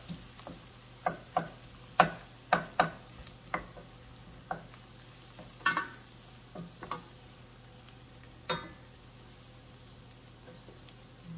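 Chopped onions sizzling in browned butter in a pan while a utensil scrapes and taps against the pan in irregular strokes as they are stirred. The strokes stop about eight and a half seconds in, leaving only the faint sizzle.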